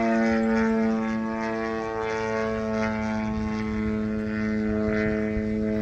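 Extreme Flight Laser RC aerobatic plane's motor and propeller running overhead as a steady drone, holding nearly one pitch with small shifts.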